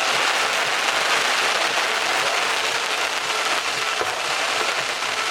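Fireworks crackling densely and without a break, many small pops running together into a steady hiss, with one sharper pop about four seconds in.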